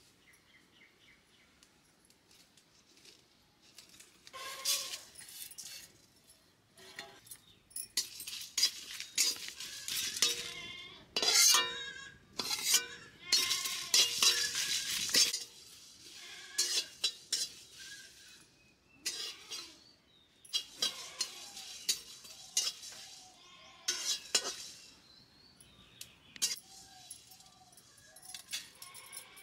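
Steel spatula scraping and clinking against a steel kadhai as whole spices and dried red chillies are stirred in it, in irregular strokes that are loudest in the middle.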